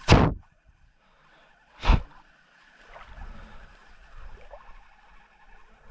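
A cast with a spinning rod: a quick swish as the lure is thrown, then a sharp splash of the lure landing in the water about two seconds later.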